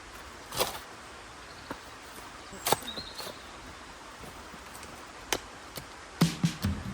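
Stones knocking against each other as rocks are handled and set into a dry stone wall: a few sharp clacks about two seconds apart, then a quick run of them near the end, over a faint steady hiss.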